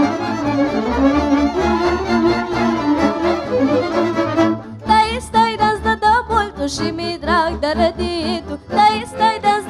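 Romanian folk band music: a fiddle-led tune with accordion and double bass. About five seconds in, the music breaks off for a moment, and then a girl's voice begins singing over the band.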